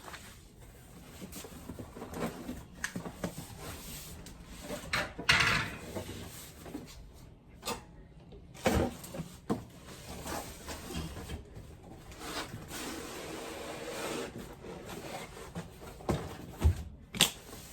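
Cardboard packaging being opened and handled while a new cookware set is unpacked: rustling, scraping and scattered knocks, with a louder rustle about five seconds in and a few sharper knocks later on.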